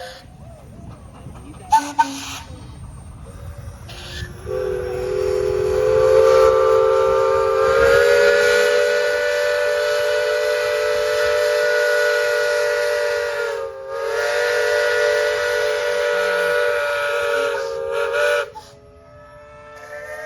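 Steam engine's whistle blowing one long blast of about fourteen seconds, several tones sounding together as a chord. It comes in about four seconds in, rises a little in pitch as it opens fully, falters briefly near the end and cuts off sharply. Two sharp clicks come before it.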